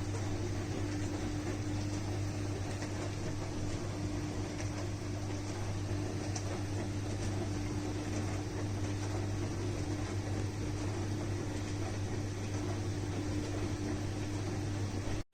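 Countertop dishwasher running: a steady motor hum with a low drone over an even rushing noise. It cuts off abruptly at the very end.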